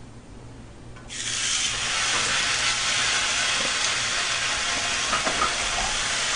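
Raw pork belly slices laid with tongs on a preheated griddle plate: a sizzle starts suddenly about a second in as the first slice hits the hot surface, then holds steady.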